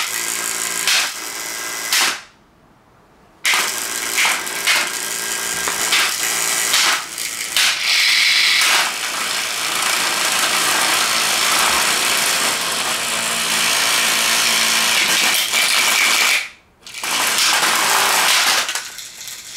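Damaged Living Solutions box fan running loudly with a rattling, mechanical clatter. It cuts out to near silence for about a second shortly after the start and drops out again briefly near the end.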